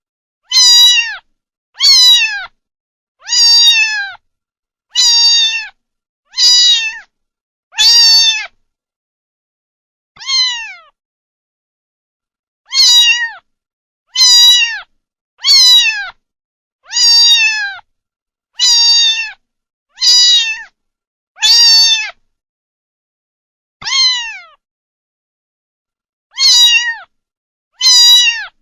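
A kitten meowing over and over: short, high meows about one every second or two, each falling in pitch at its end. There are a few longer pauses, and dead silence between the calls.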